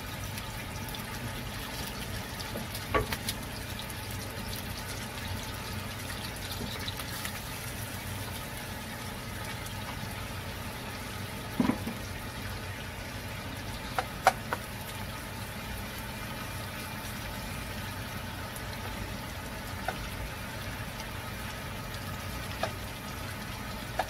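Sliced onions and minced garlic sautéing in a non-stick wok: a steady, soft sizzle, with a few sharp clicks of the spatula against the pan.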